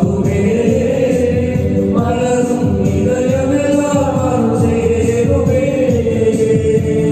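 A church choir singing a Tamil Christian hymn in held, sustained notes over steady instrumental accompaniment.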